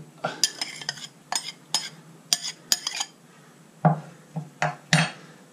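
Metal spoon tapping and scraping against a small ceramic bowl to knock the last lemon zest out: a quick run of clinks for about three seconds, then a few louder knocks.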